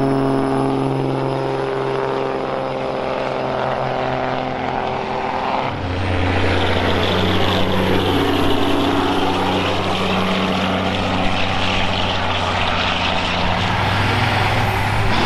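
Semi-truck diesel engines running: a steady drone that sinks slowly in pitch, then about six seconds in changes abruptly to a deeper, louder and rougher engine sound.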